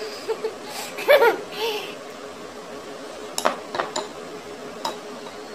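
A spoon clicking against a clear plastic chocolate mould about four times while melted chocolate is spooned into it, after a short vocal sound about a second in.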